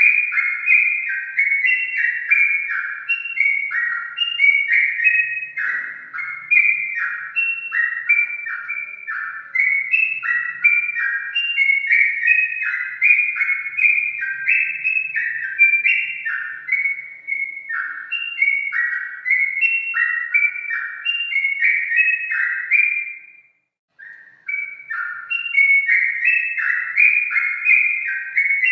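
Yellow-vented bulbul (trucukan) singing a steady stream of short, bubbly whistled phrases, one after another, with a brief silence about five seconds before the end.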